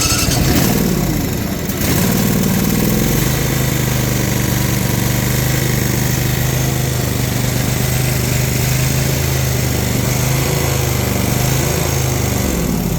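Briggs & Stratton Intek V-twin mower engine running after starting. It rises in speed over the first couple of seconds, then runs steadily, and begins to wind down near the end.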